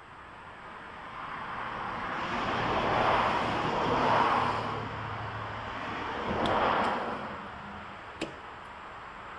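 Road traffic: a passing car's tyre and engine noise swells over a few seconds and fades, then a second, shorter swell as another vehicle goes by. A single sharp click comes near the end.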